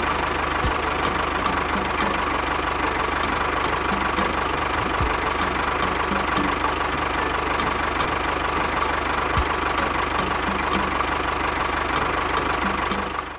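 Tractor engine running steadily with an even, rapid knock, about three beats a second.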